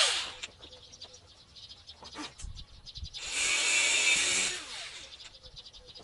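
A power drill runs down at the start, then runs again for about a second and a half before spinning down with a falling whine, with a few knocks and clicks in between.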